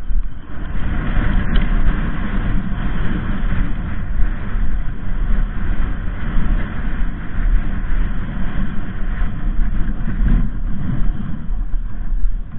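Wind buffeting the microphone: a loud, fluttering rumble with a steady hiss over it.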